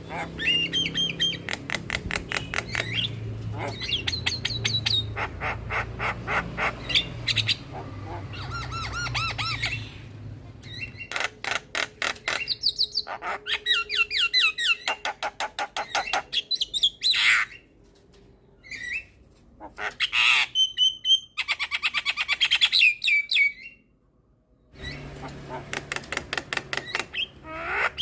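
Javan myna singing a long, varied song: fast runs of short chattering notes and squawks mixed with whistled phrases, broken by a couple of brief pauses.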